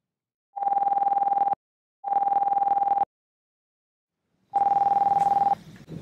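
Mobile phone ringing: a buzzy, beeping ringtone in one-second rings, two close together, then a third after a longer pause.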